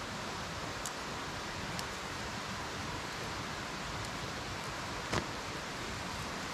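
Steady rush of a stream's flowing water, with a few faint clicks and one short knock about five seconds in.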